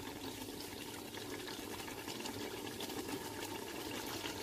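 Thick tomato and palm-oil stew bubbling and sizzling in a pot, a steady crackle of small pops: it has cooked down until the oil has risen to the top. A faint steady hum lies underneath.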